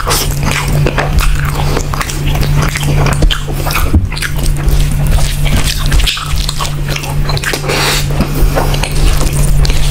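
Close-miked eating: teeth tearing meat from a curried chicken leg, then loud chewing with the mouth full. It comes as a dense, irregular run of wet clicks and squelches over a steady low hum.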